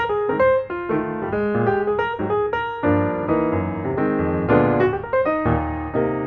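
Background piano music: a steady flowing melody of quick notes over low bass notes.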